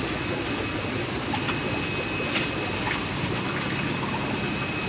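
Steady bubbling and hiss of aquarium aeration from a sponge filter, with a faint steady high whine and a low hum underneath.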